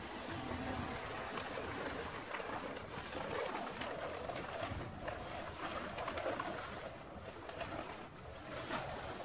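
A plastic tarp rustling and crinkling as it is pulled off a car, with wind noise on the microphone.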